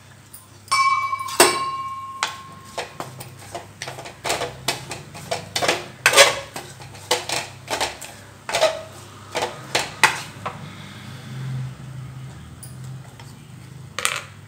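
A wooden spatula stirs and scrapes a dry, crumbly coconut-jaggery filling in a stainless steel pan, with irregular knocks against the pan. The knocks come about once or twice a second and thin out near the end. About a second in, a ringing metallic clang sounds for a second or so.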